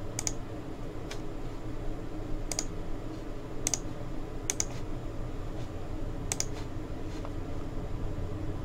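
A handful of sharp, light clicks at irregular intervals over a steady low room hum.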